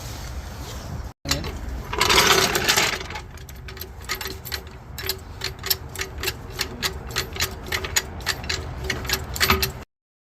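Rear suspension of a Ford Escape squeaking over and over, about three squeaks a second, after a brief burst of noise: the squeak of a worn rear trailing arm bushing.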